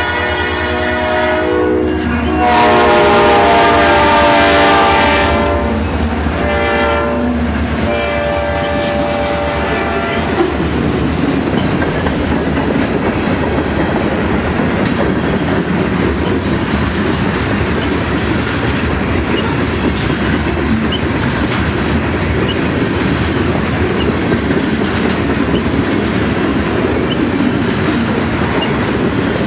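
Freight train's lead diesel locomotive sounding its horn as it passes close: the end of one long blast, a loud long blast, a short one and a final long one, the long-long-short-long grade-crossing signal. From about ten seconds in, the horn gives way to the steady rolling rumble and clickety-clack of freight cars going by.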